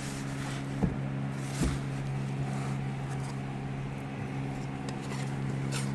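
A motor running steadily with a low, even hum, with two light knocks about one and one and a half seconds in.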